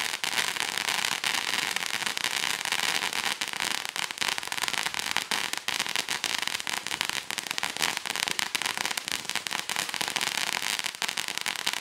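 Ground fountain firework hissing as it throws sparks, with dense, irregular crackling that keeps up steadily.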